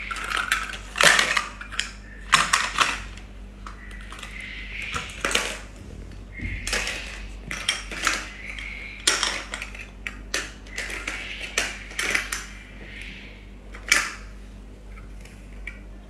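Toy fruit and vegetable pieces clattering as they are picked up and dropped into a plastic basket, a run of irregular clacks and knocks.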